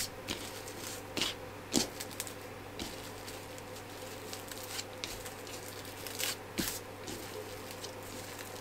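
Clear plastic cling wrap crinkling and rustling in a few short, scattered crackles as hands roll ground pork into a sausage log inside it. A steady low hum runs underneath.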